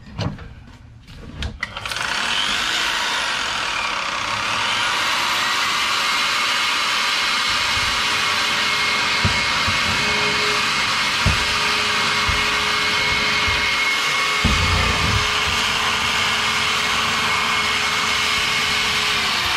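Weka diamond core drill's electric motor and gearbox running unloaded on a test run after a service. A few handling clicks, then the motor starts about two seconds in; its whine climbs in pitch over the next several seconds, holds steady, and begins to wind down at the very end.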